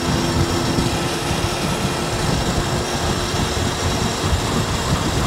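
Wind rushing and buffeting on the microphone, a steady loud noise with irregular low thumps. A faint steady hum underneath fades out in the first couple of seconds.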